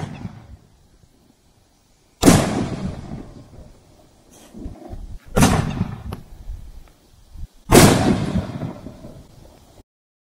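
Whacky Tobacky 500-gram fireworks cake firing shells: three sharp bangs roughly two to two and a half seconds apart, each trailing off in a rumbling echo. The sound cuts off suddenly near the end.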